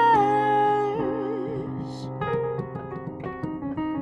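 A woman's sung note held with vibrato, dying away about a second and a half in, followed by a keyboard with an electric-piano sound playing chords over a stepping bass line.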